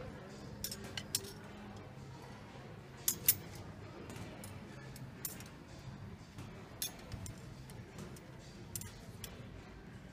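Metal hanger hooks clicking against a store display rail as hanging throws are pushed along it: a dozen or so short, sharp clicks, the loudest two together a little after three seconds in, over faint background music.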